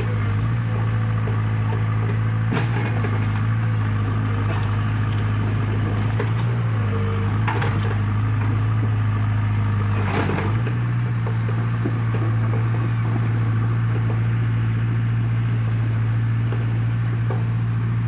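Komatsu mini excavator's diesel engine running at a steady drone as the machine tracks downhill. A few sharp knocks cut through it, the loudest about ten seconds in, after which the engine note shifts slightly.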